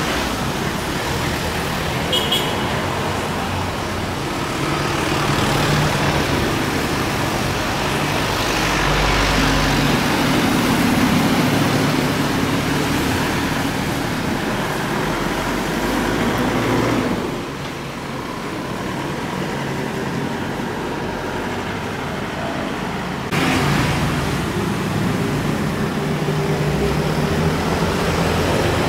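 Road traffic running steadily, with the engines and tyres of passing vehicles swelling and fading. The traffic dips about two-thirds of the way through, then comes back abruptly.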